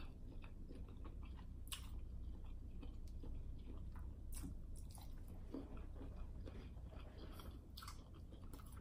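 Faint chewing of a sauce-dipped shrimp close to the microphone: soft, wet mouth sounds broken by a few sharp clicks.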